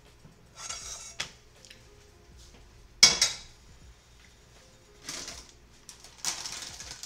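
Plate and cutlery clattering: a few short scraping clinks, and one sharp clack about three seconds in, the loudest.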